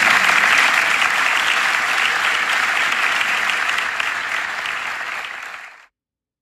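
Audience applauding, fading a little and then cutting off suddenly near the end.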